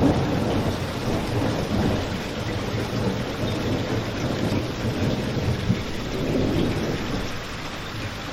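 Steady rain falling, with a low rolling rumble that swells and fades underneath it, and a single sharp pop about six seconds in.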